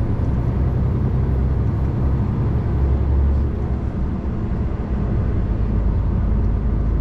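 Lorry cab interior while driving: the articulated truck's diesel engine and road noise make a steady low rumble, a little louder about three seconds in.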